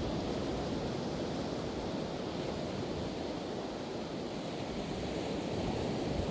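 Pacific Ocean surf washing steadily onto the beach, a continuous rushing wash with a gentle swell and ebb, with some wind buffeting the microphone.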